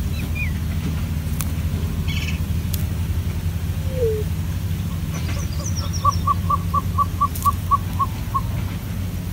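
A bird calls a run of about ten evenly spaced notes at one steady pitch, about four a second, in the second half, after a few faint short chirps. Throughout there is a steady low rumble.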